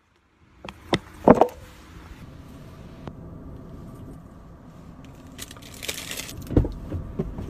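A few sharp clicks, then a plastic bag crinkling briefly about five and a half seconds in, followed by two knocks from handling, inside a car cabin with a faint steady hum underneath.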